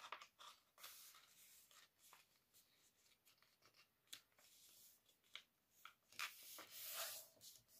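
Mostly near silence, with faint rustles and rubbing of fingers pressing and smoothing a crease in a sheet of paper; the rubbing is a little louder for about a second near the end.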